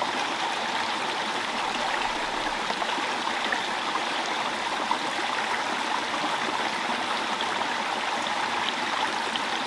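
Small stream running steadily, a constant even rush of water.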